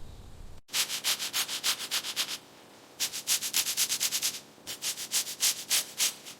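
Quick back-and-forth rubbing strokes, about seven a second, in three runs with short pauses between them.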